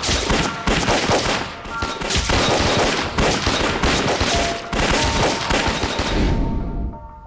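A fusillade of pistol fire from several Mauser C96 pistols: many shots overlapping in rapid succession, fading out about six and a half seconds in.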